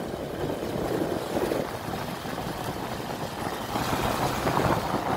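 Motorcycle running along the road while being ridden, a steady engine rumble mixed with wind rushing over the microphone.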